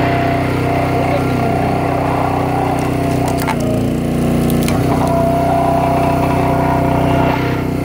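Small engine of a crushing machine running steadily while plastic toy cars are pressed and crushed, with a few sharp cracks and splintering snaps between about three and five seconds in.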